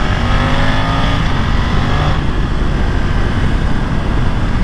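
BMW F 900 XR's parallel-twin engine running as the motorcycle is ridden through a curve, heard under heavy wind and road noise. The engine note stands out for about the first two seconds, then is mostly covered by the wind.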